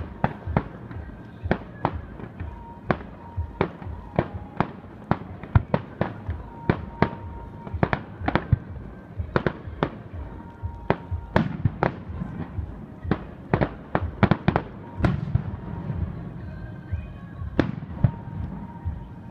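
Fireworks display: shells bursting in a steady, irregular barrage of sharp bangs, often two or three a second, some louder booms among them.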